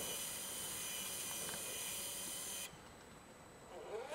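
High-pitched electric whine with hiss from a small RC electric winch and motor pulling a scale truck uphill, cutting off suddenly about two-thirds of the way through. Near the end a buzz that wavers in pitch starts.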